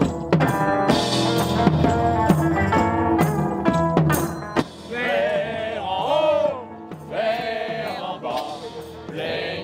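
Live band music led by a drum kit and tambourine keeping a steady beat. About four and a half seconds in the drumming drops away and voices carry on singing a wavering melody.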